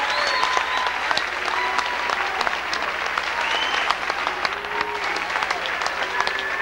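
A large audience applauding steadily, with scattered cheers and calls rising above the clapping.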